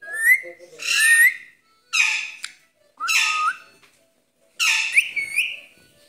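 Green Indian ringneck parakeet calling: two short rising whistles, then a run of loud, harsh squawks about a second apart.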